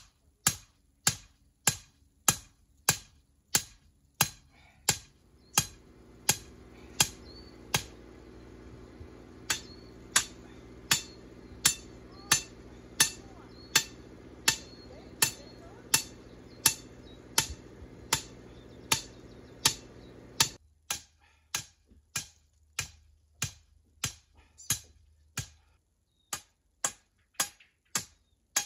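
A sharp knock repeating at a very even pace, about three every two seconds. A steady humming drone fades in about five seconds in and cuts off suddenly about twenty seconds in.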